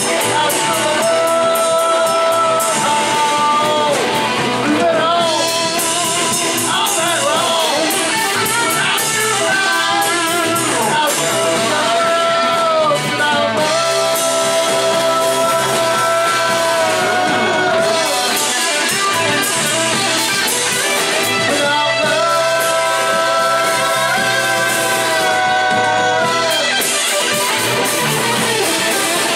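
Live rock band playing a cover of a 1970s rock song, with electric guitars, bass guitar and a drum kit going at full volume; the lead line bends and slides in long held notes.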